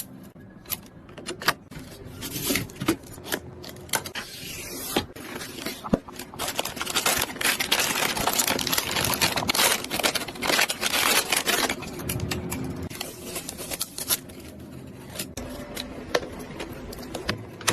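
Computer parts being handled and fitted by hand: rubbing and scraping of plastic and metal, with scattered sharp clicks and knocks, busiest near the middle.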